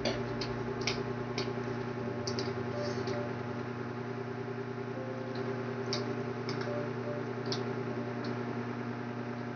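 Scattered light clicks and taps from eating noodles, irregular and brief, over a steady low hum.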